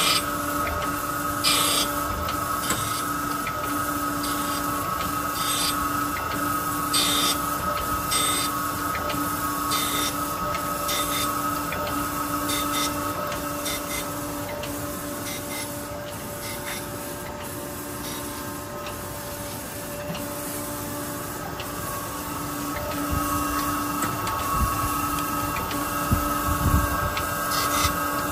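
Okamoto Accugar 124N hydraulic surface grinder running with a steady machine hum, with short bursts of grinding hiss every second or two as the wheel cuts the workpiece, thinning out through the middle.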